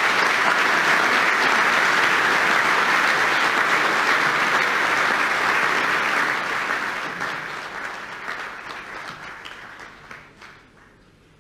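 Conference audience applauding, steady at first and then dying away over the last few seconds.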